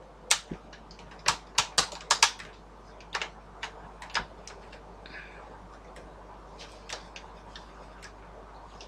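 Sharp plastic clicks of slide switches and buttons on a Sony portable world-band radio being worked by hand. There is a quick run of about a dozen clicks over the first few seconds, then fainter scattered clicks. The radio is being tested for a fault and puts out no sound of its own.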